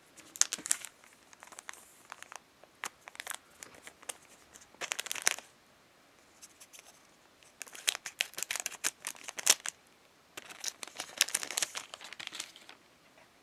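Pokémon card booster pack wrappers crinkling and being torn open, in several separate bursts of sharp crackling, each lasting up to about two seconds.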